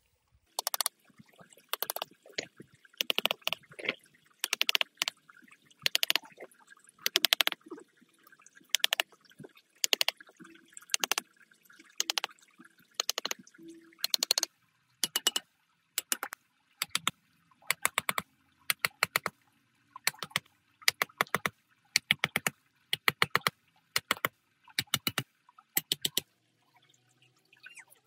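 A long run of sharp knocks, coming in quick groups of two or three at about two a second, stopping near the end.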